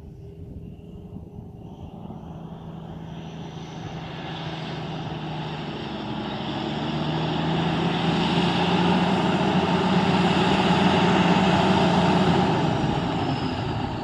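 Cummins diesel engine of a 1990 Peterbilt 377 semi truck running with a steady drone, growing louder over the first eight seconds or so, holding, then easing off a little near the end.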